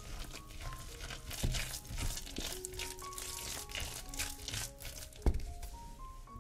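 Wooden spatula stirring and mashing cooked potato and broccoli in a glass bowl: a run of short, soft strokes, with a sharp knock against the bowl about five seconds in. Light background music with short plucked-sounding notes plays throughout.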